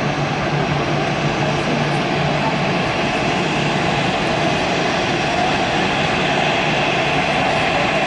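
Jet engines of an Airbus A320-family airliner running at taxi power as it rolls past: a steady hum and hiss with faint steady tones.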